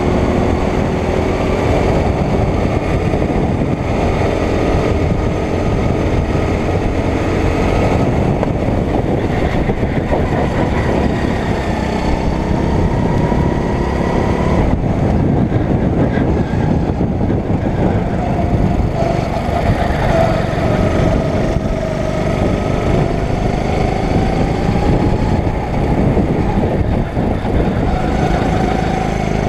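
A 9 hp rental go-kart's single-cylinder engine running hard on track, its pitch climbing for several seconds and then dropping sharply, twice, as the throttle is opened and lifted.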